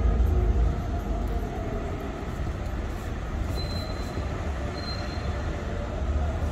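Hyderabad Metro train running, a steady low rumble with two brief, faint high squeals about halfway through.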